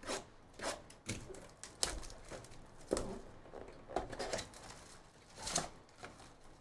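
Cardboard trading-card box being handled and torn open: a string of short rustling, scraping and tearing sounds, with a longer tear about five and a half seconds in.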